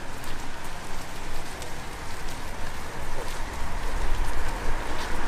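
Steady hiss of light rain on a wet street, with scattered faint ticks and a low rumble that swells about two-thirds of the way through.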